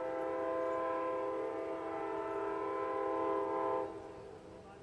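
Air horn of Amtrak GE P42DC locomotive 184 sounding one long, steady chord of several notes from the approaching train, stopping about four seconds in.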